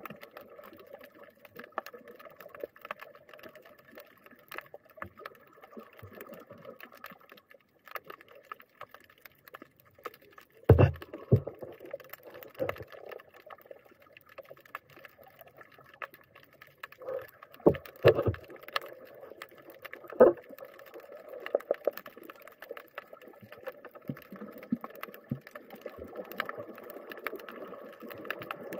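Muffled underwater sound picked up by a submerged camera: a steady hum, such as a boat engine carried through the water, with scattered faint clicks and a few loud knocks about 11, 18 and 20 seconds in.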